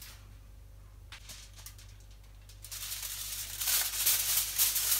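Aluminium foil crinkling and rustling as a sheet is handled. It starts about halfway through and grows louder toward the end.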